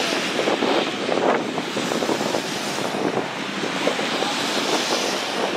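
Steady wind noise on the microphone at an open sports field, with faint distant shouts from the rugby players.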